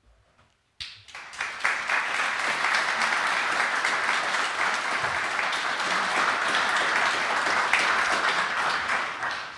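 Audience applauding: the clapping starts abruptly about a second in, holds steady, and tails off near the end.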